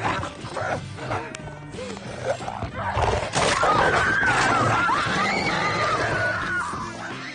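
A pit bull attacks a man: loud animal snarling and a man's wavering cries over background film music, starting suddenly about three seconds in.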